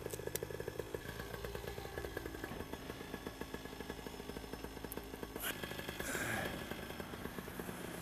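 Paramotor engine idling with a steady rapid putter. A brief rustle comes a little past five seconds in.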